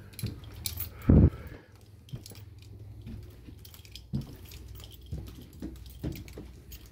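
Footsteps climbing a carpeted staircase: dull thuds about once a second, the heaviest about a second in, with faint clicks and rustle from the handheld phone.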